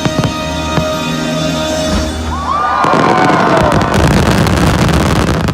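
Show music playing over the sharp bangs of fireworks. About three seconds in, the music is swamped by a loud, dense rush of firework crackle and crowd cheering, with rising and falling whistling glides.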